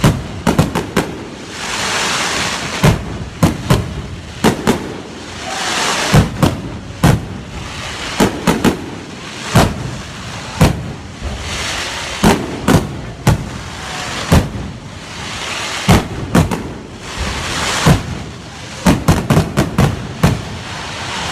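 Fireworks display: a rapid, irregular barrage of aerial shells bursting with sharp bangs, between swells of hissing crackle.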